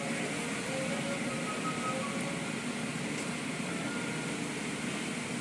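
Automatic car wash heard from inside the car: spinning cloth brushes and water spray scrub over the body in a steady wash of noise.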